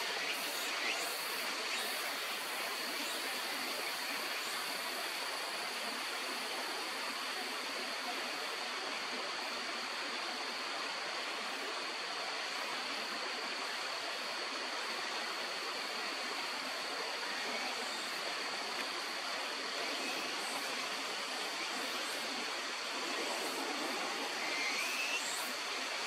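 Stream water rushing steadily, with a few short, sharp calls of a crested kingfisher around the start and again near the end.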